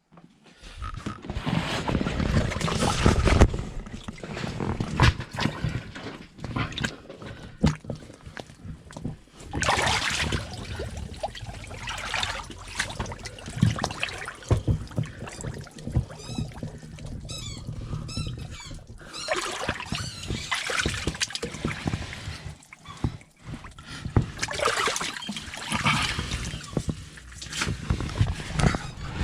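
Water churning and splashing in a Lay-Z-Spa hot tub while its freshly repaired pump, fitted with a new impeller and seals, runs with a steady low hum that comes in about a second in. The pump is quiet, a sign the repair has fixed the seized, noisy pump. A few quick high chirps sound near the middle.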